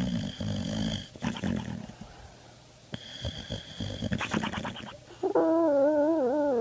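A sleeping dog snoring loudly twice, each snore carrying a steady high whistle. About five seconds in a long, wavering pitched moan begins.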